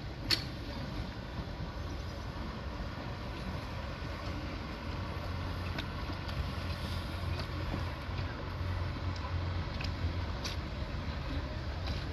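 Small boat engine running steadily at low speed, a low hum, with a few faint clicks.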